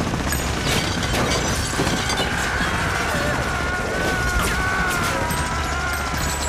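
Action-film soundtrack mix: music under a dense run of crashes and bangs from a fight and gunfire, with a wavering held tone through the second half.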